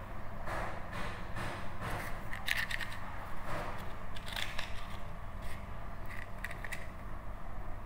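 Irregular light clicks and scraping sounds over a steady low hum.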